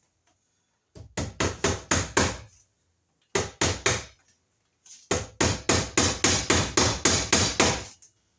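Hammer striking in three runs of quick blows, about four a second, the last run the longest, driving a cable staple into wood framing.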